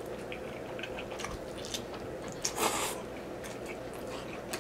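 Close-up mouth sounds of chewing a mouthful of cheesy spaghetti with meat sauce: soft wet smacks and clicks, with one short louder noisy burst a little past halfway.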